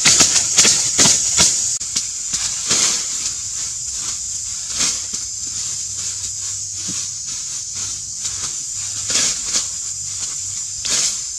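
Hoes striking and scraping dry forest soil and leaf litter in repeated short strokes, quick and dense for the first two seconds, then slower and more spaced out, over a steady high-pitched hiss.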